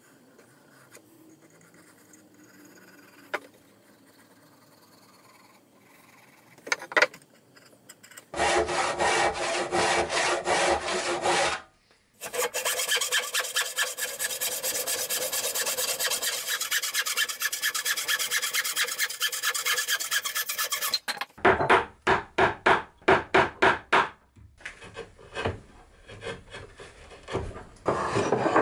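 Faint pencil marking with a couple of light knocks, then a bow saw cutting curves in a cherry chair leg with fast, even strokes. Heavier strokes follow at about three a second, and near the end the sawn edge is worked with a rasp in quick, lighter strokes.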